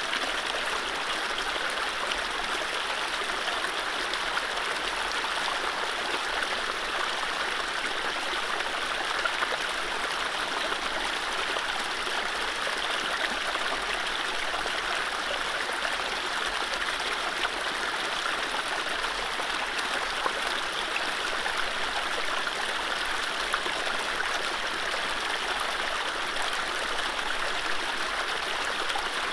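Mountain stream running over low rapids: a steady rush of water with no birdsong.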